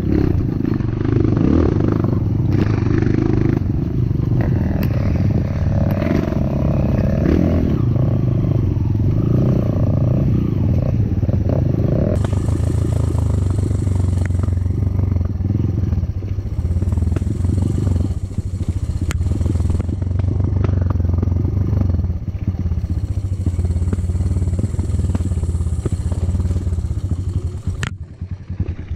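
Trail motorcycle engine running and revving up and down while riding, with some clatter and scraping from the bike over rough ground. The sound falls away abruptly at the very end.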